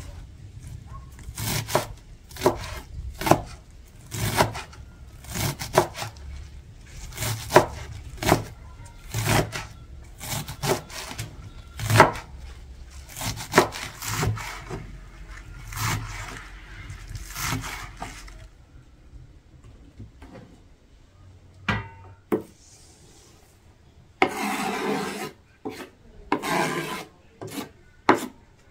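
Repeated rubbing strokes on wood, about one a second, which stop about two-thirds of the way through. A few light knocks and two short scraping sounds follow near the end.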